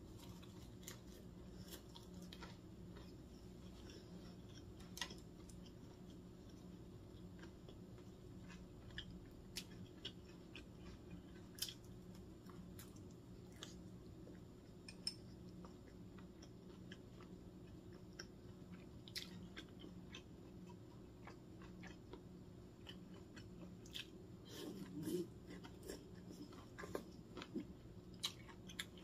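Close-miked chewing of a mouthful of lettuce-wrapped rice: faint, scattered wet mouth clicks and soft crunches of lettuce leaf over a low steady hum, with a brief murmur about 25 seconds in.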